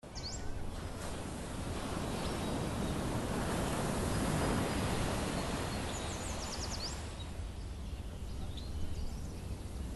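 Wind rushing over the microphone on an exposed headland, swelling slightly midway, with a few short high bird chirps near the start and again around six to seven seconds in.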